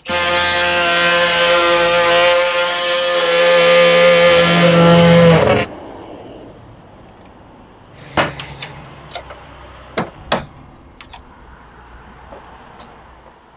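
Oscillating multi-tool sawing through a wooden roof counter-batten: a loud, steady buzz that stops abruptly after about five and a half seconds. A few sharp knocks follow as the cut batten is handled.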